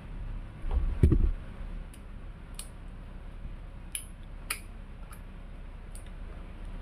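Plastic quick-connect hose coupling being handled and pushed onto the pressure washer's water inlet: a dull knock about a second in, then several light clicks over the next few seconds.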